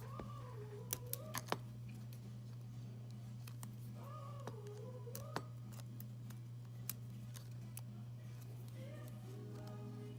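A few sharp small clicks, a cluster about a second in and single ones near five and seven seconds, as the display's flex connectors and tools are handled on the opened iPhone XS Max. Faint background music and a steady low hum run underneath.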